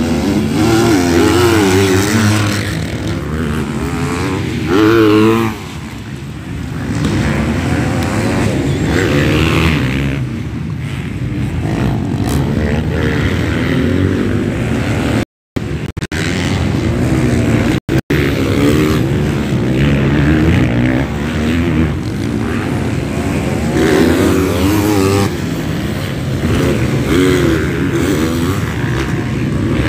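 MX2 motocross bikes running around a dirt track, several engines revving up and down in pitch as riders accelerate over the bumps. The sound cuts out abruptly once about halfway through, and again briefly a couple of seconds later.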